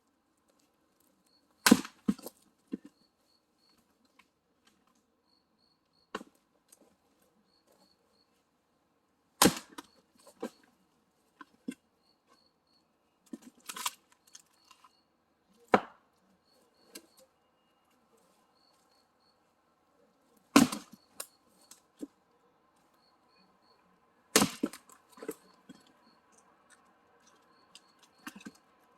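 Firewood being chopped: about six heavy, sharp strikes several seconds apart, each followed by a few lighter knocks.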